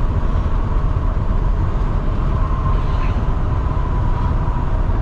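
Steady low rumble of a semi truck's diesel engine and tyres, heard inside the cab while driving at highway speed, with a faint steady hum above it.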